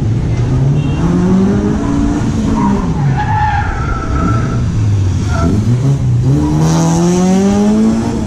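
Car engine revving up and easing off several times, climbing hard near the end, with tyres squealing as the car is thrown through the turns of a cone course.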